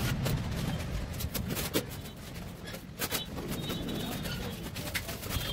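Scattered clicks, knocks and scrapes of hand work on a concrete stair step as a mason works the mortar, over a low steady rumble. There are a few faint high chirps.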